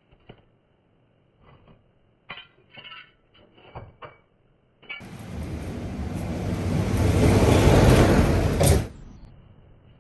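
A few light knocks and clatters of handling, then a loud hiss that starts about halfway through, swells for nearly four seconds and cuts off suddenly.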